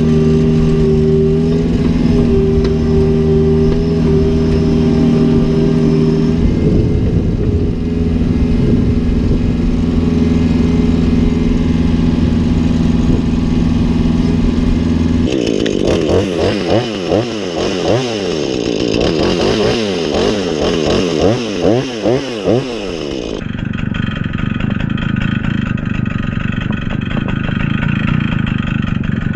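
Power equipment engines running across several edits: a steady engine note for about fifteen seconds, then a wavering engine pitch that rises and falls rapidly for about eight seconds, then another engine running steadily.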